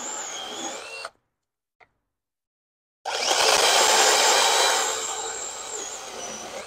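IMOUMLIVE 6-inch mini electric chainsaw (battery-powered, brushless motor) cutting through a log: a high motor whine over the chain ripping through wood. The first cut fades out about a second in; after a silent gap a second cut starts loud about three seconds in and tapers off.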